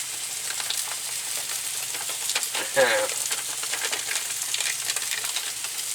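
Striped bass fillet frying in a pan, a steady sizzle; the fish is about done.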